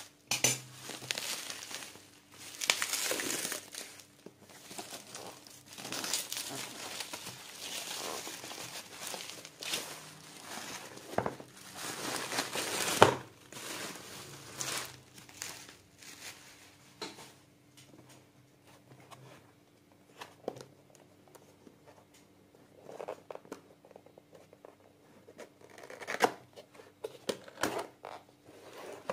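Plastic bubble wrap crinkling and rustling as it is pulled off a box and crumpled by hand, loudest in the first half. It then turns to softer, scattered taps and rustles of the cardboard box being handled, its lid lifting open near the end.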